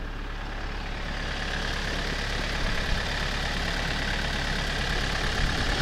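Vehicle engine running steadily, growing slightly louder, with a faint high whine coming in about a second and a half in.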